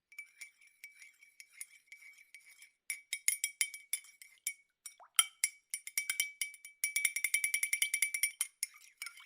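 A spoon stirring in a cup, clinking against its sides with a ringing tone. It starts with light taps, gets louder after about three seconds, and speeds into a quick, even run of clinks near the end.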